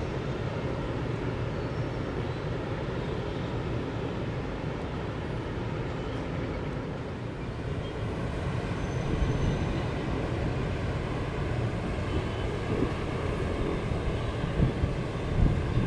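Steady low rumble of distant engines with a constant low hum, under a hiss of outdoor background noise.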